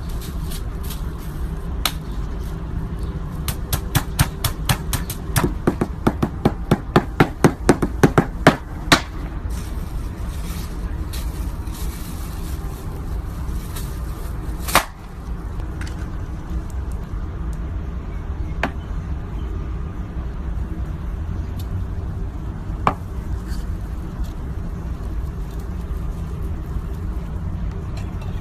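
A knife chopping rapidly on a cutting board, a run of about twenty quick strikes at roughly four a second. A few single knocks follow, with a steady low background hum.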